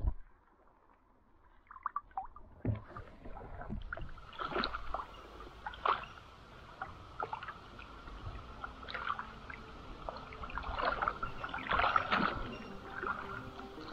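Shallow forest stream trickling and gurgling over stones and sand, with scattered small splashes and drips.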